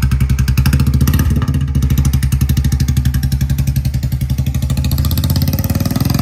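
Royal Enfield Classic 350 Reborn's single-cylinder engine running through a free-flowing short Punjab straight-pipe exhaust, a loud, rapid, even beat of exhaust pulses as the motorcycle pulls away and rides off.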